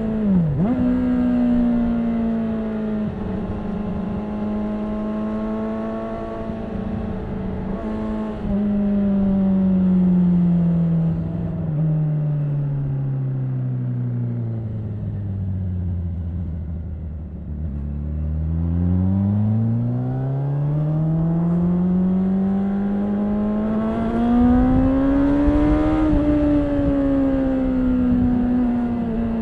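2013 Honda CBR600RR's inline-four engine with its stock exhaust, heard from the bike while riding. The revs dip sharply for a moment right at the start, then hold, then fall slowly for several seconds to a low drone around the middle. They climb steadily again, peak a few seconds before the end and ease off slightly.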